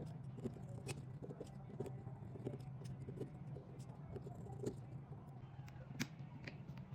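Faint scattered clicks and light taps of small hand tools working on a tablet during a screen replacement, over a steady low hum.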